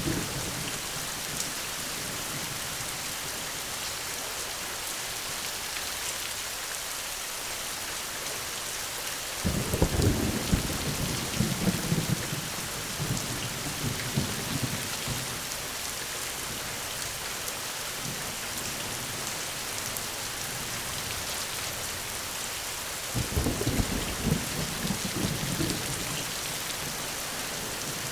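Steady rain falling, a constant hiss, with two rolls of thunder rumbling low, one about ten seconds in lasting several seconds and a shorter one near the end.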